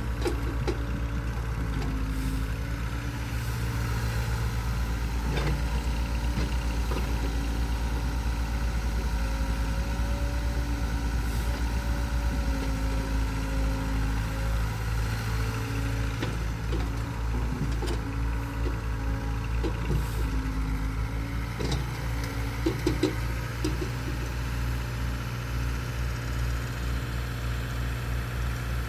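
Heavy diesel engine running steadily at a low, even pace, with a few short knocks about three quarters of the way through.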